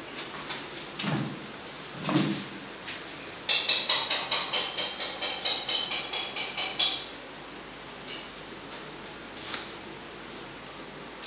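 A kitten playing with a cat-food packet on a tiled floor. There are a couple of soft scuffs and thumps in the first two seconds. About three and a half seconds in comes a rapid, juddering scrape of about five pulses a second, lasting some three seconds, as something is dragged across the tiles.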